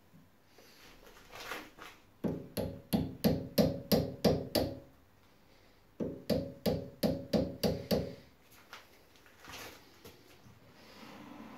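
Hammer tapping on steel, each blow ringing briefly: a quick run of about eight blows, a pause of about a second, then six more. The blows are persuading the 3 mm silver steel rod into place in the lathe.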